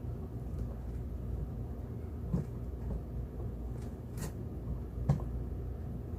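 A few short knocks and clicks of objects being handled, the sharpest about four seconds in and the loudest about five seconds in, over a steady low hum.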